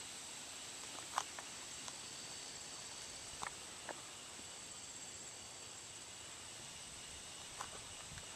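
Steady high-pitched chorus of insects droning on a summer evening, with a few short ticks or taps over it, the loudest about a second in.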